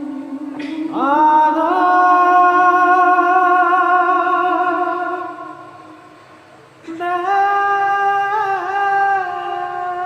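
Music: a voice singing long held notes without words, the first sliding up into pitch about a second in and fading out, a second note starting near seven seconds.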